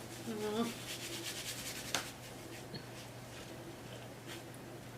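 Faint rubbing and rustling of a napkin being wiped over a man's face and beard. There is a brief vocal sound near the start and a light click about two seconds in.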